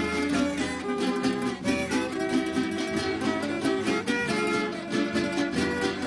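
Venezuelan estudiantina string ensemble playing a vals: bandolas and guitars plucking the melody over strummed chords.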